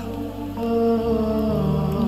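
Slow background music of long held notes, with the low note changing about a second in.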